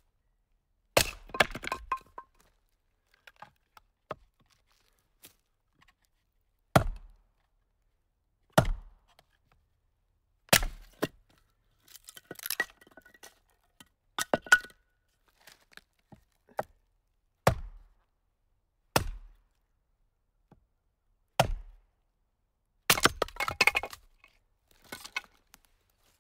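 Firewood being split with chopping blows: about a dozen sharp single strikes a second or two apart. Several are followed by brief cracking and clattering as the wood splits apart, and a dense burst of cracking comes near the end.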